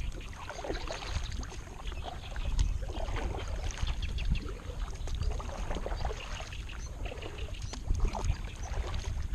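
Kayak paddling with a double-bladed paddle: the blades dip and pull through calm water in repeated strokes, with splashes and drips, over a steady low rumble.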